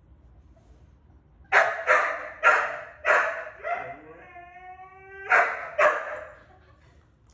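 A dog barking: a run of about seven sharp barks, with one drawn-out whine of about a second in the middle.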